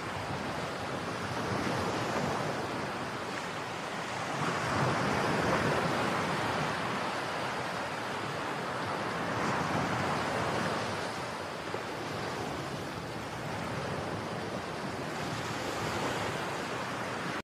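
Wind-driven waves on the flood-swollen Ganges washing against a stony bank, with wind over the microphone. A steady rush of water that swells and eases every few seconds.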